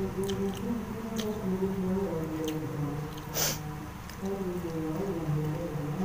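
Soft background music with held notes that change step by step, under wet mouth clicks and smacks from eating by hand. A brief breathy noise comes about three and a half seconds in.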